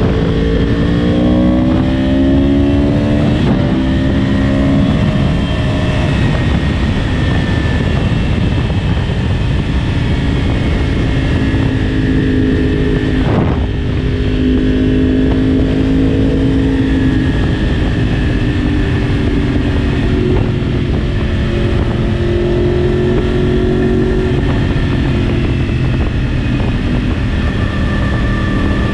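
Yamaha R1's inline-four engine heard on board while riding, climbing through the revs over the first few seconds, then rising and falling more gently as it cruises. Two brief breaks in the engine note come about three and a half seconds in and about halfway through. A steady rushing noise runs under it.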